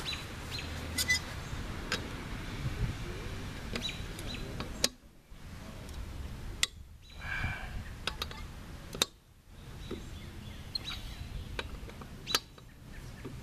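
Lug nuts on a steel wheel being broken loose with a 21 mm socket on a long wrench. There are four sharp cracks a couple of seconds apart, starting about five seconds in, with lighter clicks of the socket and wrench between them.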